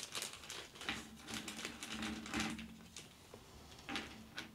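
A small plastic bag crinkling as it is handled and opened, with light, irregular clicks as hard plastic miniature parts are tipped out onto a cutting mat.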